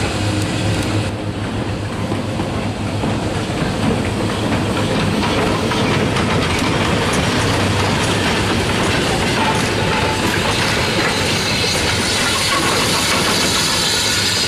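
Industrial saddle-tank steam locomotives, W. G. Bagnall 0-4-0ST 'Jubilee' among them, hauling a goods brake van past at low speed, the wheels clattering over the rail joints in a steady rumble.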